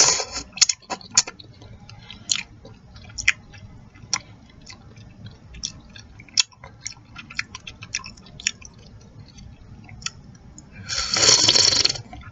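Close-up mouth sounds of eating chicken noodle soup: wet chewing and lip-smacking clicks scattered throughout. Near the end comes a loud slurp lasting about a second.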